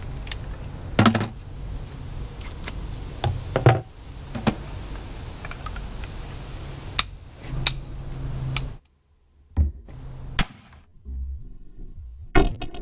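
Scattered sharp knocks and clicks of a hard plastic bucket lid and a flare gun being handled, the gun being set into a hole in the sealed lid. A steady low hum drops away about nine seconds in, and a few more knocks follow.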